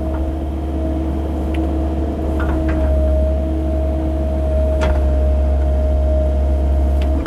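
CAT 308 mini excavator's diesel engine running steadily under a digging load, with a steady whine over the low hum and a few short knocks.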